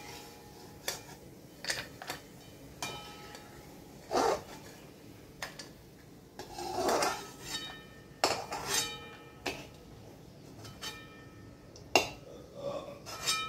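Perforated metal slotted spoon clinking and scraping against a metal kadhai and bowl while scooping fried cashews and raisins out of hot ghee. About eight sharp clinks, each with a brief metallic ring.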